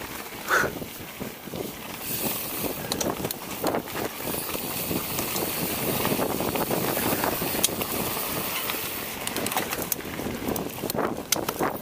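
Giant Trance 29 mountain bike rolling fast down a dirt singletrack: steady tyre noise on the dirt, with frequent clicks and knocks as the bike rattles over bumps.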